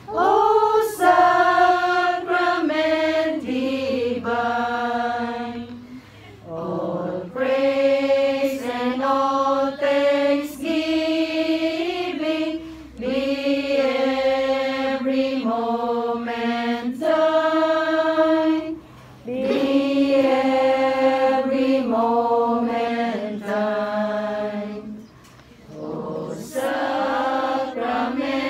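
A small group singing a slow devotional hymn without accompaniment, in long held notes with short pauses between phrases.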